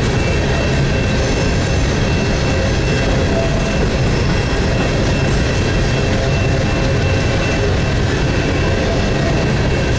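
Coal hopper cars of a CSX freight train rolling past: a steady rumble of steel wheels on rail, with faint, steady high-pitched tones over it.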